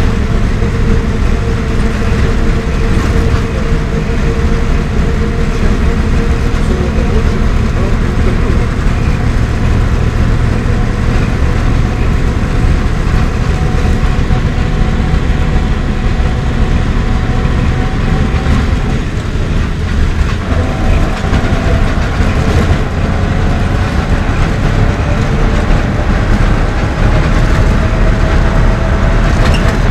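LAZ-42021 intercity bus under way, heard from inside the passenger cabin: a steady engine drone with deep road and body rumble. The engine note shifts briefly about two-thirds of the way through.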